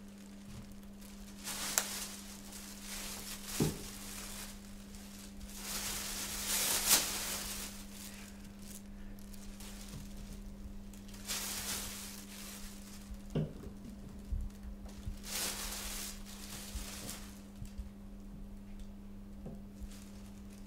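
Plastic toiletry bottles being set down one at a time on the rim of a bath: a few light knocks, with rustling swishes of handling in between, over a steady low hum.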